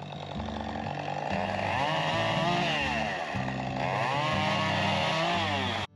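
Chainsaw running and cutting through a fallen tree, its engine pitch rising and sagging twice as it bites into the wood. It cuts off suddenly near the end.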